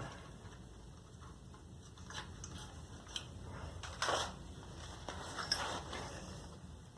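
Light metal clicks and scrapes from hand tools as Allen head bolts are fitted on a scooter exhaust, a few at a time with pauses between. The sharpest knock comes about four seconds in, and a cluster follows just after five seconds.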